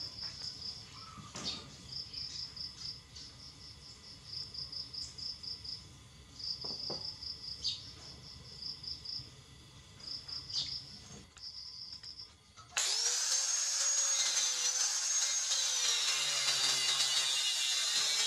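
An insect chirps in short repeated trains, with a few knocks as a steel motorcycle brake disc and a C-clamp are handled on a wooden bench. About 13 seconds in, an electric angle grinder starts abruptly and cuts into the clamped disc, loud and steady with a high whine that wavers.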